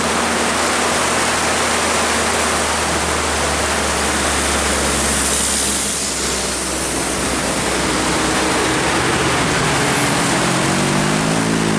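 Steady loud hiss of heavy rain and wet-road spray, with a low engine drone from a vehicle in the first half. Near the end another vehicle engine comes in, its pitch rising as it approaches.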